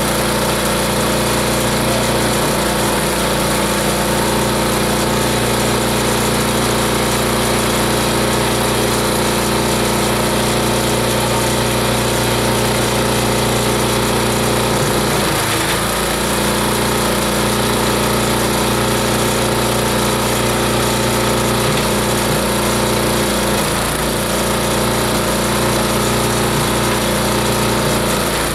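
Multi-blade chopper-shredder-grinder machine running, a loud, steady mechanical drone that holds one pitch throughout.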